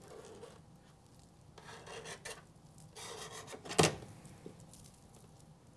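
Hands rubbing and pressing folded fabric against a countertop to crease accordion folds, in several rubbing strokes, with one sharp knock about four seconds in.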